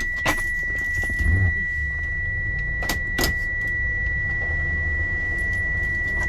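A few sharp metal clicks as a flat screwdriver pries the Toyota Yaris ignition lock cylinder out of the steering column, its key ring clinking. Underneath are a steady low hum and a constant high-pitched tone.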